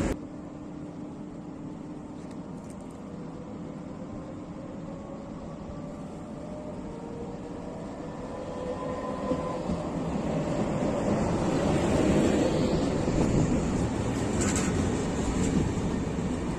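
ONCF Z2M double-deck electric multiple unit approaching along the platform. Its rumble comes with a faint motor whine and grows louder from about halfway as the train draws alongside.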